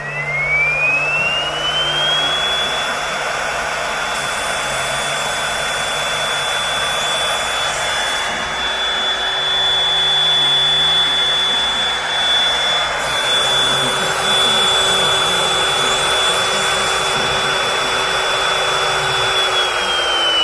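Motor of an automatic knife-sharpening machine spinning up with a rising whine, then running steadily with a hiss under a high whine, and starting to wind down with a falling pitch near the end.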